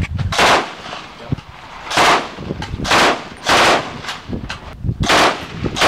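Bipod-mounted machine gun firing a series of short bursts, five or six of them, each a second or so apart.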